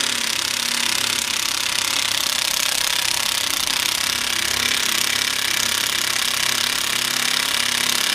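Milwaukee M18 1/2-inch cordless impact wrench hammering steadily and rapidly on its lowest speed setting, running a wheel nut down onto a truck's wheel stud.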